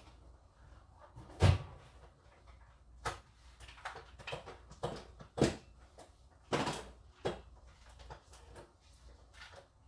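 Household cleaning clatter: irregular knocks, bumps and clunks of things being moved and set down. The loudest is a heavy thump about a second and a half in.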